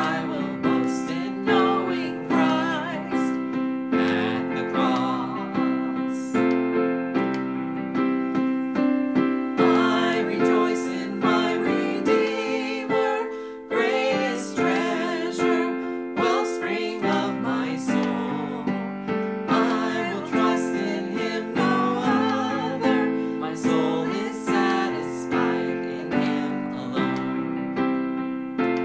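Piano accompanying a man and a woman singing a hymn together in duet.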